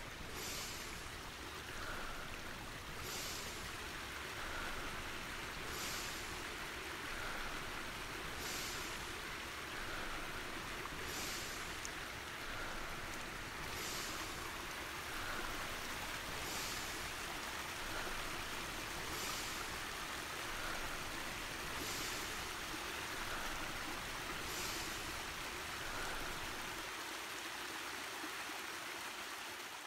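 Steady rush of flowing water, like a small stream or spillway. Soft sounds recur over it at an even pace, about every two and a half to three seconds.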